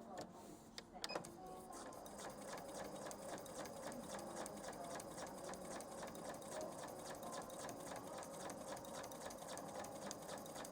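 Janome Memory Craft 5200 sewing machine stitching through four layers of denim. After a click about a second in, it runs at a steady, even stitch rhythm.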